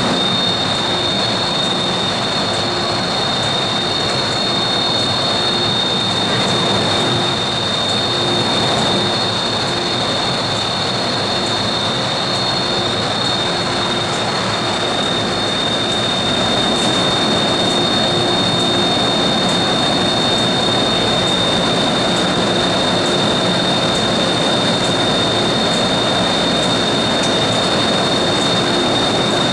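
MTR M-Train electric multiple unit standing at a station platform with its equipment running: a steady roar with two steady high-pitched whines and a low hum that comes and goes.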